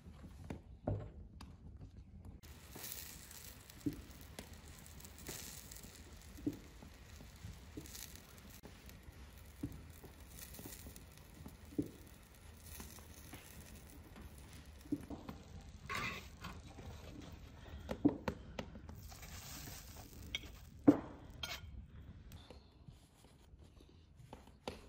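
Kutab cooking on a hot iron saj pan: a faint, steady hiss with scattered sharp ticks and light crackles every second or two, two louder clicks near the end.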